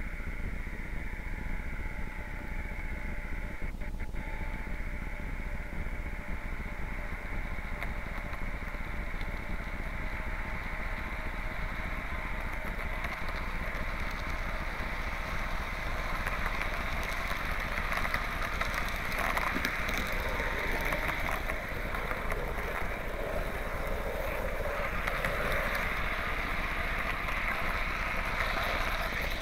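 Märklin model ICE train running along the track, heard from a camera riding aboard: a steady rolling and motor noise of the model on its rails, growing a little louder and harsher from about halfway through.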